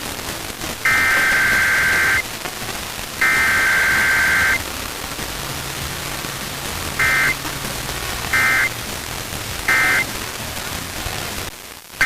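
Emergency Alert System SAME digital data bursts, two-tone screeching: the last two of a header's three long bursts about a second apart, then three short end-of-message bursts closing a required weekly test, and a new header burst starting near the end. A steady static hiss runs underneath.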